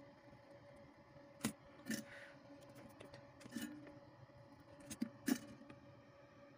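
Several short, sharp clicks and taps of tools and parts being handled on a workbench during soldering, the loudest near the end, over a faint steady hum.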